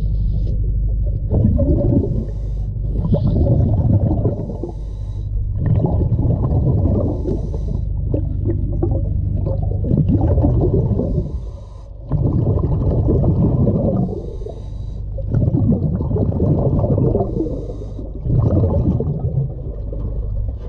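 Diver breathing underwater through a scuba regulator: exhaled bubbles gurgle out in bursts every two to three seconds, over a steady low rumble.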